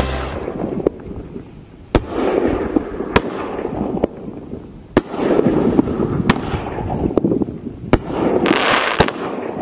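Pyrostar Chroma 5-inch XL canister shells firing in a demo: sharp bangs about once a second, with a rushing hiss between them.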